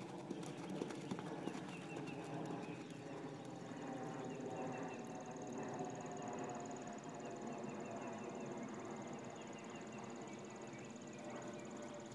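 Hoofbeats of a pinto pony cantering on sand arena footing, sharpest in the first second or two as it passes close, then softer as it moves off across the arena. Birds chirp in the background.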